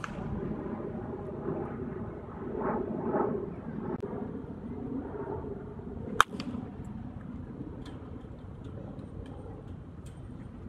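A baseball bat strikes a pitched ball once, a sharp crack about six seconds in, over steady low outdoor background noise.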